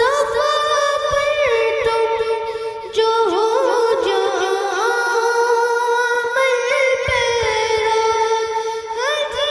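A boy singing an Urdu naat unaccompanied, holding long notes with slow melodic turns, with a short breath about three seconds in.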